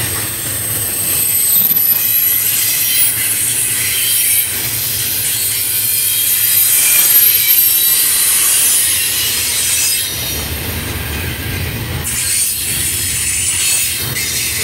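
Double-stack container train's well cars rolling past: a steady rumble of wheels on rail with high-pitched wheel squeal over it.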